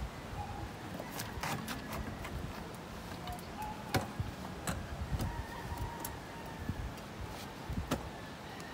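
Irregular clicks and knocks of a Porta-Bote folding boat's seat being worked into its polypropylene hull, the sharpest about four seconds in and again near the end.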